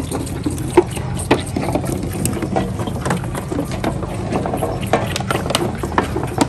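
Goat kids suckling at a stand of plastic feeding bottles: scattered sharp clicks and knocks, several of them over a few seconds, over a steady low rumble.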